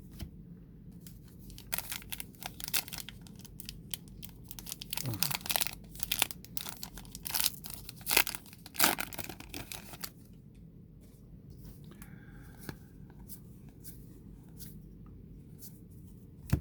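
A baseball card pack wrapper being torn open and crinkled: a dense run of crackling, rustling tears for about eight seconds, then quieter faint handling of the cards, with one sharp click near the end.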